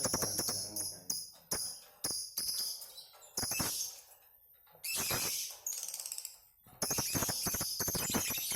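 Lovebirds singing 'ngekek': rapid, high-pitched chattering trills in short bursts with gaps between them, then one long unbroken run in the last couple of seconds.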